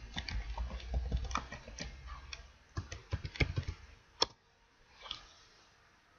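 Typing on a computer keyboard while a password is entered: a quick run of key clicks for about four seconds, then one sharper, louder click.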